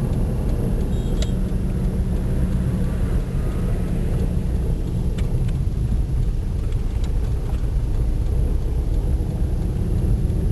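Steady low rumble of a moving car's engine and tyre noise, heard from inside the car, with a few faint clicks.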